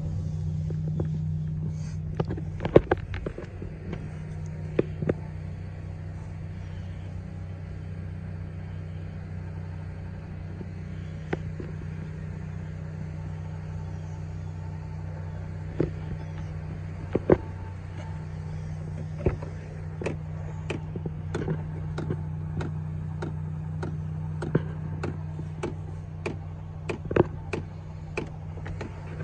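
1999 GMC Sierra pickup's engine idling steadily, a low even hum, with scattered short clicks and taps.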